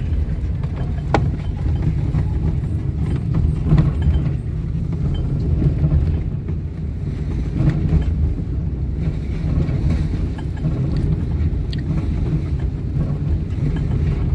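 Steady low rumble of a car's engine and road noise heard from inside the cabin while driving, with a couple of faint clicks near the start.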